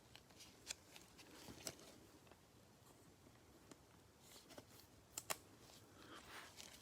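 Faint handling of trading cards: scattered light clicks and flicks as cards are slid and set down, with a short rustle near the end.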